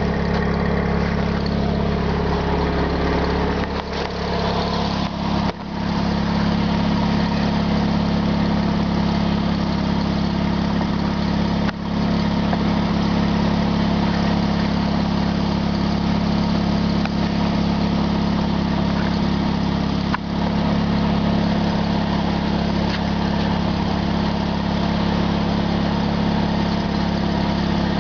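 An engine idling steadily, with a few short dips in level.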